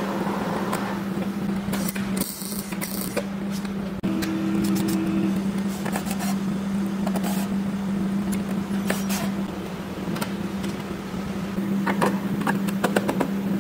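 Metal car-body panels being handled and fitted, with scattered clanks, clicks and scrapes over a steady low hum.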